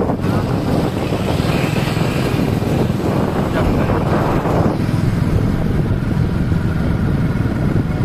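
Wind buffeting the phone's microphone in a steady low rumble. Passing traffic adds to it for a few seconds near the start.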